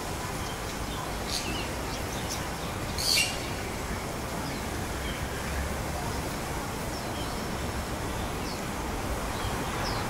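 Bird calls: a few short high chirps and one loud, brief, harsh call about three seconds in, most likely from the Bali myna, over a steady low rumble of background noise.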